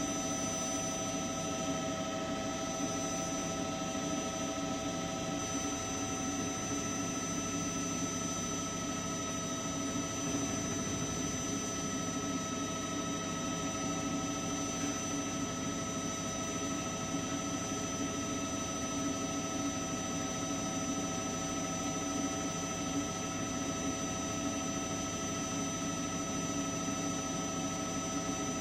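Turbine engine of a news helicopter running steadily, heard from on board: a continuous whine with several high steady tones over a steady low rumble.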